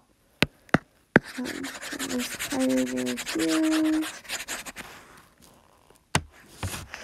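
Apple Pencil tip tapping the iPad's glass screen three times, then rubbing and scratching across it for about three and a half seconds as a highlighter stroke is erased, with another tap near the end.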